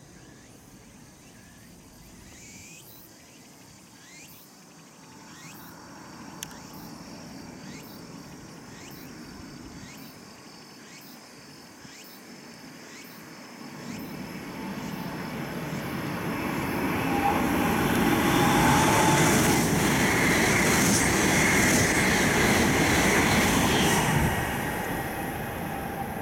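Tohoku Shinkansen bullet train approaching at high speed and passing beneath: a rushing roar of air and wheels on rail that builds from about halfway through, stays loudest for several seconds, then drops away sharply near the end.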